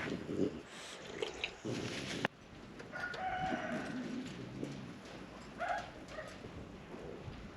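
A rooster crowing once about three seconds in, followed by a shorter chicken call near the end. A few knocks and a sharp click come in the first two seconds.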